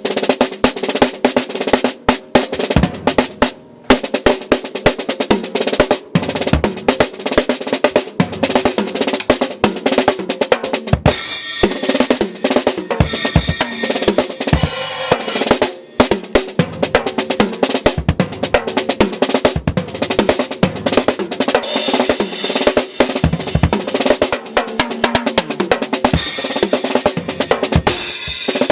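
Drum kit played in a busy solo: fast snare rolls and rimshots over bass drum, with a short break a few seconds in and another around the middle.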